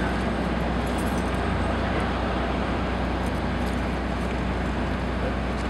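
White Pass & Yukon diesel locomotive running steadily, a low even engine hum under a constant hiss.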